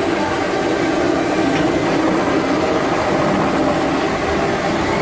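Expedition Everest roller coaster train moving along the track through the station, a steady rumble with a low hum.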